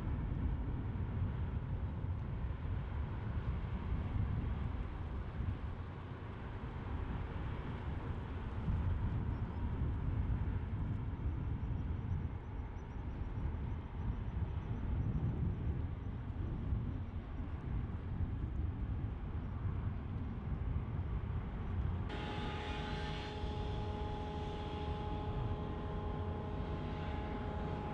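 Harbour ambience: a steady low rumble. About 22 seconds in it changes abruptly to a steady machinery hum holding several fixed pitches.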